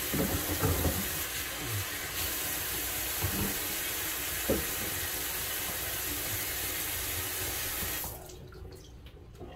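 Kitchen faucet running into a pot of raw neck bones being rinsed, with a few short knocks of meat and pot in the first seconds. The water is shut off about eight seconds in.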